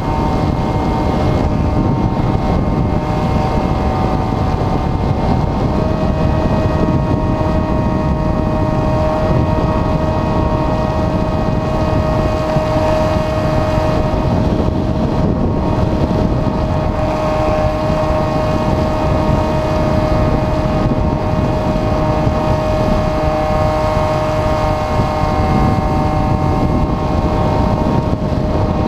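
Onboard sound of an Airfield Extreme Surfer 2400mm RC glider in flight: its electric motor and propeller whining steadily over a heavy rumble of wind on the camera microphone. The whine shifts to a slightly lower pitch about six seconds in.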